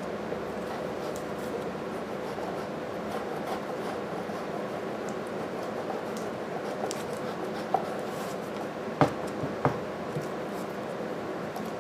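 Light scraping and rubbing of a hand tool shaping half-cured epoxy putty, over a steady background hum. Three sharp taps come between about eight and ten seconds in.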